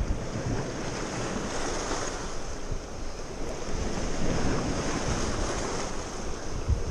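Sea surf washing steadily over a rocky shore, with wind rumbling on the microphone.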